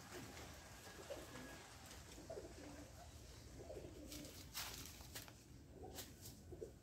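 Faint dove cooing, low repeated notes, with a few short clicks about four and a half to six seconds in.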